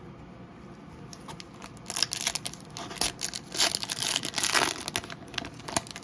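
Foil trading-card pack wrapper crinkling and tearing as it is handled and opened: a run of irregular crackles starting about a second in, loudest in the second half.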